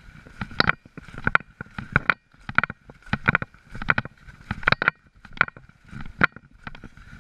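Snowshoe footsteps climbing through snow, a close crunch with a quick clatter at each step, about three steps every two seconds.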